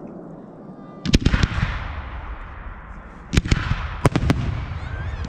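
Aerial firework shells bursting: a quick cluster of sharp bangs about a second in, then another run of bangs from about three seconds on, each followed by a rolling echo.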